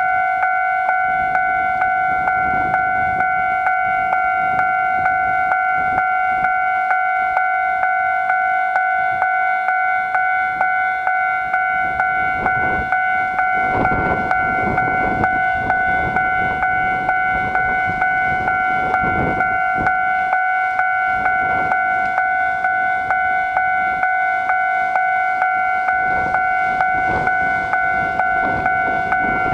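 Japanese railway level-crossing warning alarm ringing: an electronic bell tone that starts suddenly and dings in a quick, even rhythm, signalling that a train is approaching.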